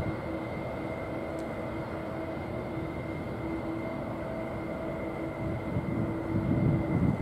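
Twin turbofan engines of a Boeing 777 airliner running at low thrust as it rolls along the runway: a steady engine whine and hum over a low rumble, and the rumble grows near the end.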